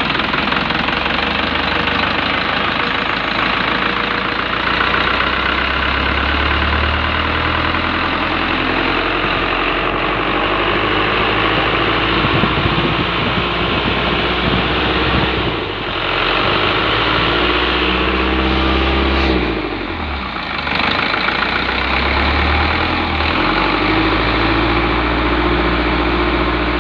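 Isuzu 4HG1 four-cylinder diesel engine idling with an abnormal noise, which the owner attributes to a damaged idler pulley. The sound is steady and dips briefly twice past the middle.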